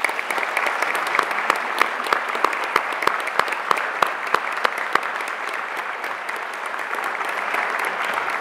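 Audience applauding steadily. For the first five seconds one pair of hands close to the microphone stands out, clapping about three times a second.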